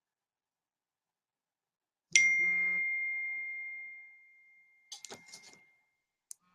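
A single bright ding about two seconds in, one clear high tone that rings on and fades away over about two seconds. A few faint clicks and rustles follow near the end.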